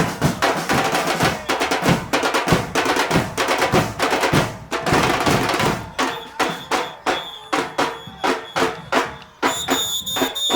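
Murga carnival band playing drum-led music. About six seconds in, the dense drumming thins to sparser, sharp percussion strikes.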